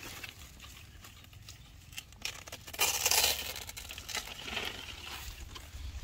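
Stiff pineapple leaves rustling and scraping as a pineapple is cut from its stalk and pulled free of the plant. There are scattered small clicks, and a louder rasping burst comes about three seconds in.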